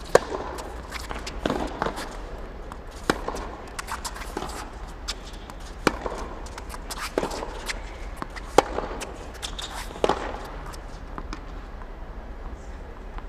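Tennis balls struck by rackets and bouncing on a hard court in a practice rally: sharp pops about every second and a half, some with a short echo. The hits stop about ten seconds in, leaving a low steady hum.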